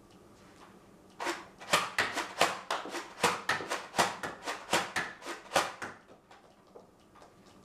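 Nerf Doomlands Vagabond pump-action blaster slam-fired: the pump worked back and forth with the trigger held, giving a rapid run of sharp plastic clacks and shots, about four a second. It starts about a second in and stops near the six-second mark.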